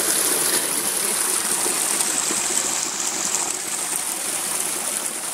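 Small creek running: a steady rush of flowing water.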